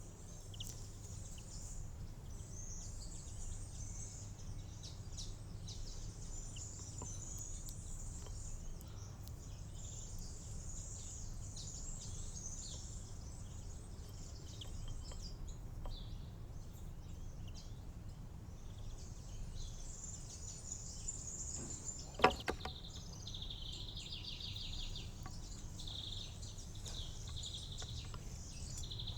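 Small songbirds chirping and twittering over a steady low rumble, with a fast buzzy trill in the last several seconds. A single sharp knock about 22 seconds in is the loudest sound.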